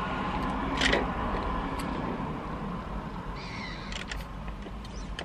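Drink being sucked up through a plastic straw from a paper cup, a steady sipping hiss, with a short uneven slurp about three and a half seconds in.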